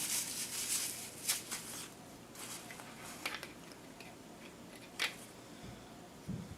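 Fingers smearing and pushing fresh grease into a power window motor's gear housing: sticky handling noise with a few sharp clicks of the housing and parts being handled.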